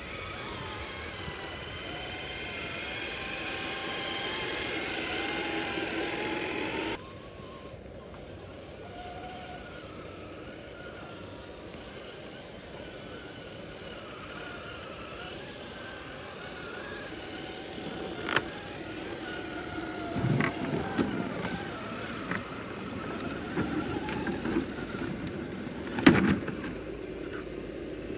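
Electric motor and gears of a radio-controlled scale crawler whining, the pitch shifting with the throttle, then cutting off abruptly about seven seconds in. After that a quieter stretch with occasional sharp knocks and clatters, the loudest about 26 seconds in.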